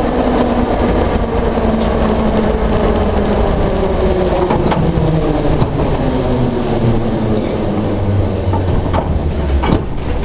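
Metro train running into a station and braking: the traction motors' whine falls slowly in pitch over a heavy rumble from the wheels and rails. A couple of sharp clicks come near the end.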